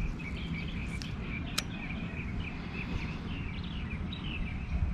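Many birds chirping over a fluttering low rumble of wind on the microphone, with one sharp click about a second and a half in.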